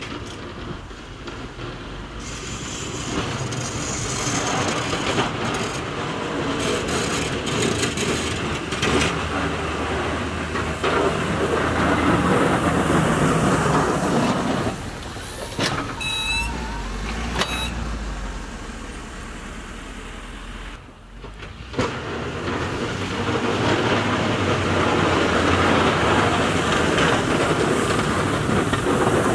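A 2012 Ford F350's 6.7 Power Stroke diesel V8 running as the truck plows snow with its Fisher XLS blade. It swells as the truck works toward the microphone, louder about halfway through and again near the end, and two short high chirps come about sixteen and seventeen seconds in.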